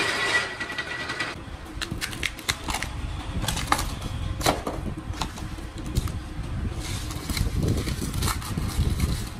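A wire-stripping machine running for about the first second, then irregular sharp clicks, knocks and scraping as thick insulated copper cable is cut and stripped by hand with a knife, over a low rumble.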